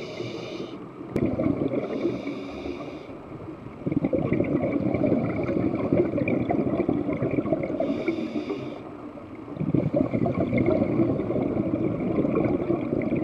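Scuba diver's breathing heard underwater: a low rushing gurgle of exhaled bubbles that comes in stretches of a few seconds, with a thin regulator hiss on the breaths in between.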